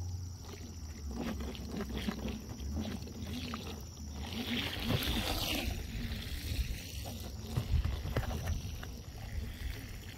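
Halo Rover off-road hoverboard riding over a concrete path: the motor whine wavers up and down in pitch under a steady low rumble, with scattered clicks and a hissing rush about halfway through.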